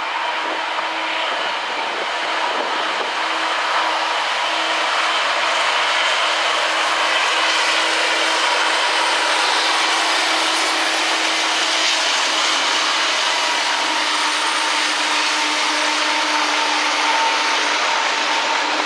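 Freight train passing close by, three Canadian National diesel locomotives followed by CSX coke hopper cars: a steady rumble of locomotive engines and steel wheels on rail. It grows louder about four seconds in as the train comes alongside, then holds as the locomotives and the first hoppers go by.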